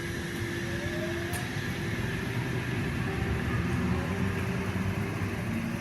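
Oscar (H-set) electric multiple unit pulling away from the platform: a steady rumble of wheels and running gear, with a faint rising motor whine as it accelerates.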